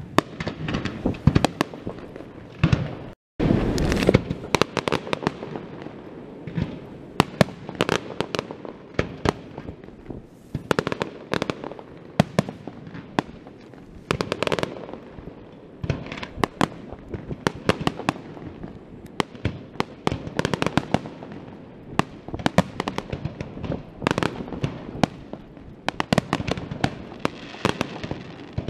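Fireworks display: a rapid, irregular barrage of aerial shell bursts, sharp bangs coming several a second at times over continuous crackling. The sound breaks off for a moment about three seconds in.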